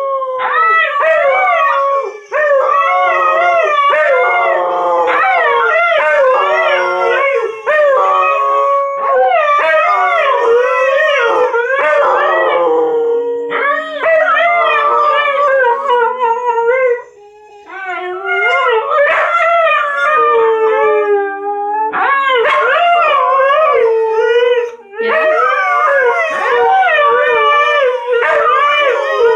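Several Siberian Huskies howling together, long wavering howls overlapping one another, with short breaks between rounds and a clear pause of about a second just past the middle.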